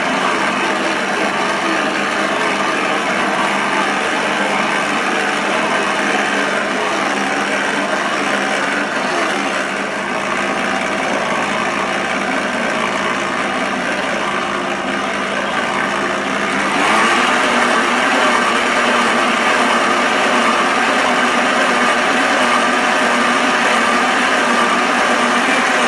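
Electric stand mixer's motor running steadily as its flat beater churns stiff cookie dough in a stainless steel bowl. The sound steps up in loudness about two-thirds of the way through.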